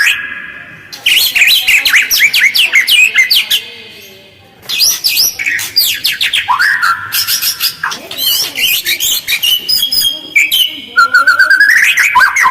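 White-rumped shama (murai batu) singing a rough, fast, chattering song: several bursts of rapid notes and quick sweeps, each a second or three long, separated by short pauses.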